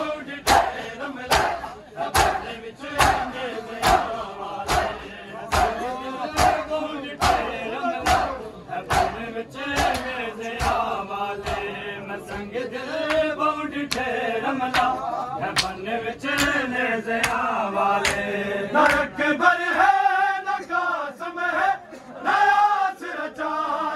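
A crowd of men chanting a noha in unison, with sharp chest-beating (matam) slaps in a steady beat about twice a second. The slaps thin out about halfway through while the chanting carries on.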